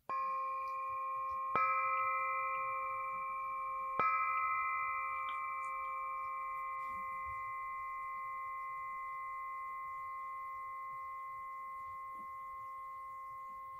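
Singing bowl struck three times, at the start, after about a second and a half, and at about four seconds; its bright metallic tone rings on and fades slowly.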